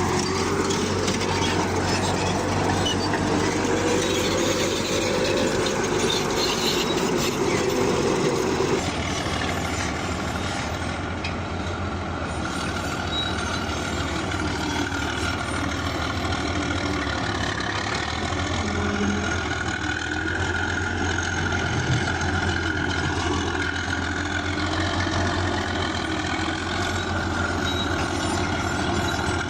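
Heavy earthmoving machine's engine running steadily under continuous mechanical noise, with an abrupt change in the sound about nine seconds in.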